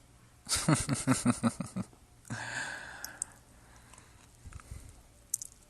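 A man's voice making wordless sounds: a quick run of short voiced pulses, then a breathy exhale lasting about a second, and after it faint low sounds.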